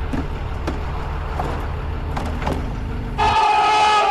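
Low steady rumble with a few faint clicks, then about three seconds in a vehicle horn starts, loud and held on one chord-like tone.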